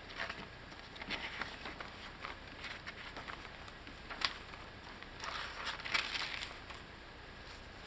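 Paper pages of a handmade journal rustling and crinkling as they are handled and turned, with a sharp tap a little past four seconds in and a busier spell of rustling soon after.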